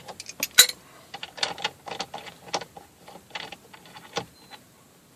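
Light irregular metal clicks and taps, a few per second, as the loosened steering wheel centre bolt of a BMW E60 is turned out the rest of the way; they die away after about four and a half seconds.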